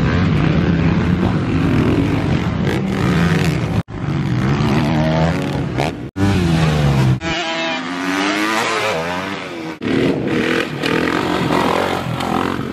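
Motocross dirt bike engines revving hard on the track in several short cuts, the sound breaking off and starting again three times. Near the middle an engine's pitch sweeps up and down repeatedly as the throttle is worked.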